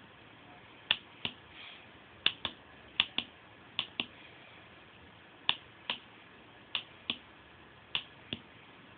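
Switch clicking as it is pressed and released, tapping out the number 78 in Morse code: about fourteen sharp clicks, mostly in pairs with irregular gaps between them.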